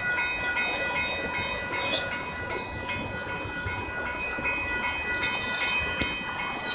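Norfolk Southern freight train of covered hoppers and autoracks rolling past with a steady rumble, its wheels giving a couple of sharp clacks. Over it, a railroad crossing bell rings steadily.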